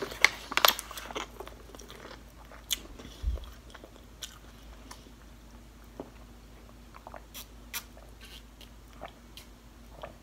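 Close-miked mouth sounds of eating and drinking: chewing, then sips and swallows of water from a plastic water bottle. They come as a scatter of small clicks, louder and more frequent in the first few seconds, then fewer and fainter.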